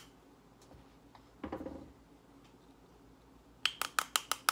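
Quick, evenly spaced clicks, about seven a second, starting near the end after a brief rustle about one and a half seconds in. The sound comes from a buckshot-loaded shotshell hull being tapped to settle the buffer among the pellets.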